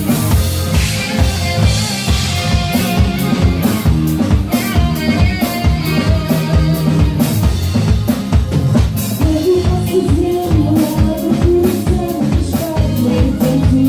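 Live band playing an instrumental passage: a drum kit keeps a steady, driving beat with rimshots under bass notes and pitched melody lines.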